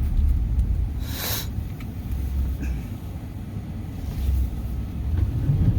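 Pickup truck's engine and tyres rumbling low and steady, heard from inside the cab, as it is driven through deep snow to get unstuck; a brief hiss about a second in.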